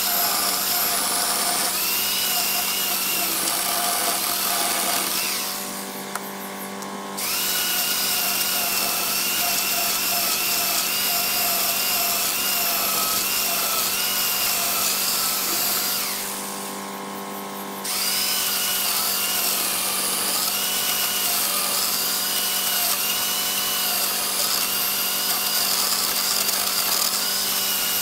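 Corded electric chainsaw cutting down through a thick wooden table-top panel: a steady motor whine that wavers in pitch as the chain works through the wood. Twice, for a second or two, the sound drops quieter and steadier before the saw bites again.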